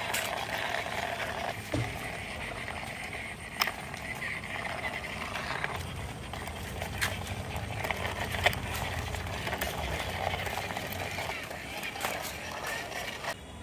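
Plastic wheels of a small toy tractor rolling and scraping over a rough concrete wall as it is pushed by hand, a continuous gritty rumble with a few sharp clicks.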